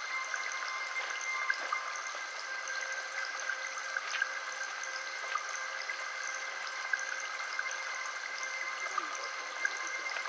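Steady flowing water like a stream, with a few faint steady tones running through it.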